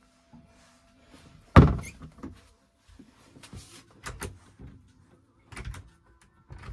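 A door inside a camper van shuts with one loud thunk about one and a half seconds in, followed by several lighter knocks and clicks.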